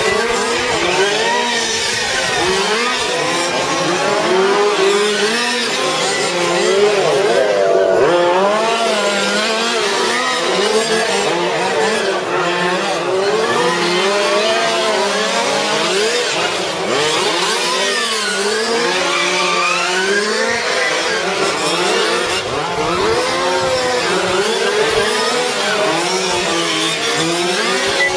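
Several radio-controlled racing cars' motors running together on a track, their pitch rising and falling over and over as the cars accelerate and slow through the corners.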